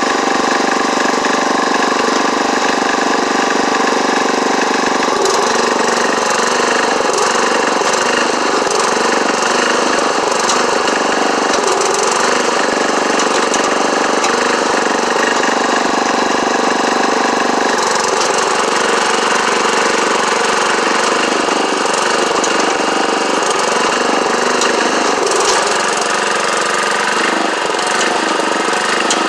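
Craftsman LT1138 lawn tractor engine running steadily, with scattered knocks and rattles over it from about five seconds in.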